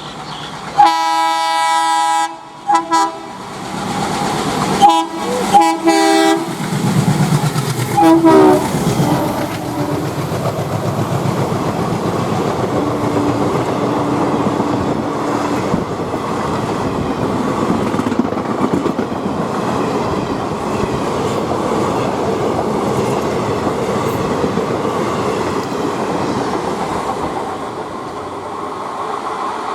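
Indian Railways ALCO diesel locomotive's horn: one long blast about a second in, then several short honks over the next seven seconds. The train then runs past with a steady rumble and wheels clattering over the rail joints for the rest.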